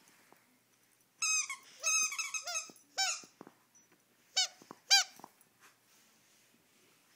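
Squeaker in a Lamb Chop plush dog toy squeaking as a dog bites down on it: a quick run of short, high squeaks, then two more about four and five seconds in.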